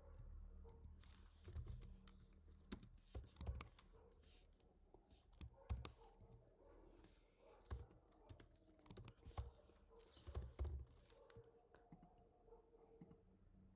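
Faint typing on a computer keyboard: irregular keystrokes, coming in quick runs with short pauses and thinning out near the end.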